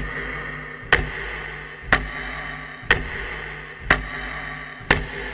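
Clock-tick sound effect counting down, one sharp tick about every second over a faint steady hum, marking the time left to guess.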